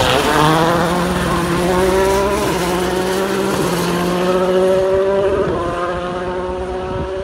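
A World Rally Car's turbocharged four-cylinder engine passes close with a drop in pitch, then accelerates away, its pitch climbing with a couple of gear changes as it fades. A helicopter's rotor and turbine run steadily beneath it.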